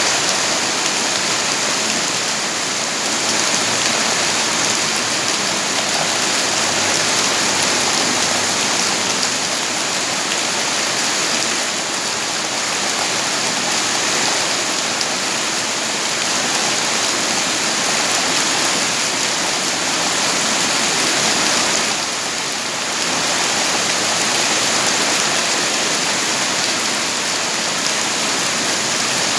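Steady, heavy rain falling, a dense even hiss with a brief lull about 22 seconds in.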